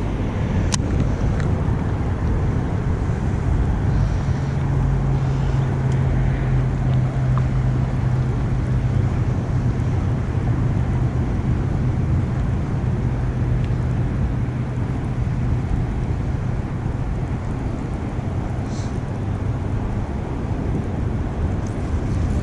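Wind rumbling on the microphone, with a steady low motor hum that comes in a few seconds in and fades away toward the end.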